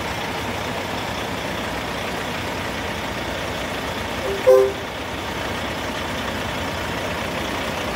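Heavy tri-axle dump truck's diesel engine idling steadily. About halfway through, a single short, loud two-note beep cuts in over it.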